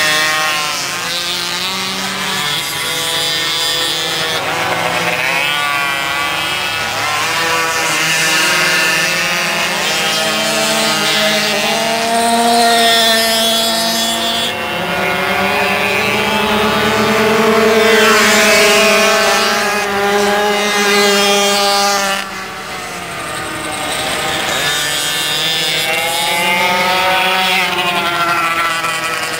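Several pocketbikes' small two-stroke engines buzzing at high revs as they race around the circuit. Their pitch repeatedly rises and falls and overlaps as the bikes accelerate, brake for corners and pass by.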